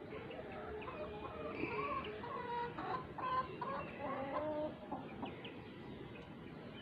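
Chickens clucking: many short calls overlapping, busiest in the middle.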